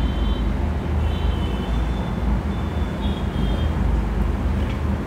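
Steady low background rumble, with faint high squeaks of a marker writing on a whiteboard at the start and again about three seconds in.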